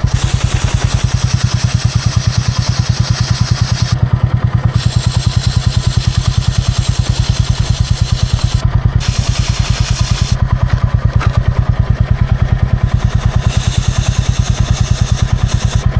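Motorcycle engine idling in first gear with a steady, fast, even beat as the rear wheel turns the chain. Over it is the loud hiss of a C1 chain-cleaner aerosol sprayed onto the chain in long bursts, with short breaks and one longer pause past the middle.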